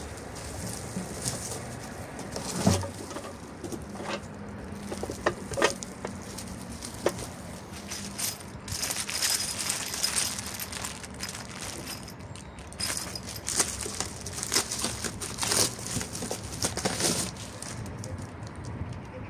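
Plastic packing wrap crinkling and rustling as it is handled and pulled from a cardboard box, in irregular crackly bursts, with a thump about three seconds in.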